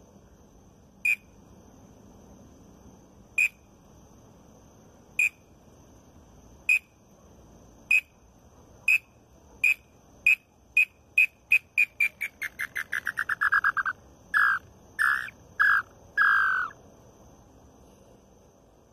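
A wooden mouth-blown bird call imitating an inhambu (tinamou) song. Single clear whistled notes come a second or two apart, speed up into a fast run that drops in pitch, then end in four longer, lower notes.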